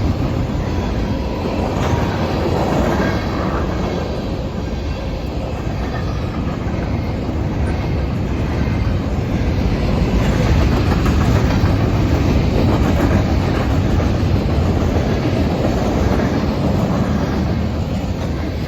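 Freight cars of a Norfolk Southern manifest train rolling past a grade crossing: a steady, loud rumble with the clatter of steel wheels on the rails.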